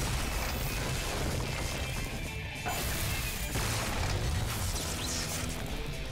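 Cartoon transformation sound effects: crunching, crashing rock layered over music, with no speech.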